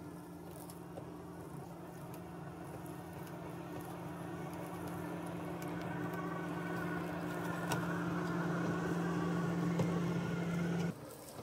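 Hookii Neomow X robotic lawn mower's electric motors running with a steady hum, which grows louder as the mower drives up and passes close by. The hum stops abruptly near the end.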